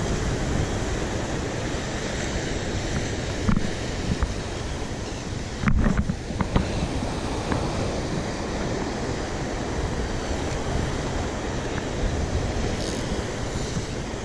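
Steady rushing of surf on the shore rocks with wind on the microphone. A few short knocks come about halfway through.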